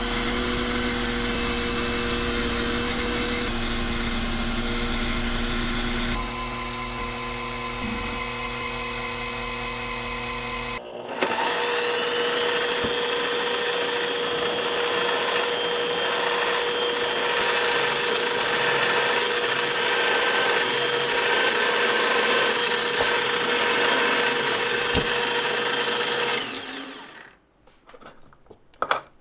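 A small milling machine's spindle runs as an end mill cuts a slot in a stainless steel bolt, dropping a little in level about six seconds in. At about eleven seconds a different machine takes over: a drill press turning a fine twist drill into the same part, running steadily with a clear tone. It stops a couple of seconds before the end, leaving a few faint metal clicks.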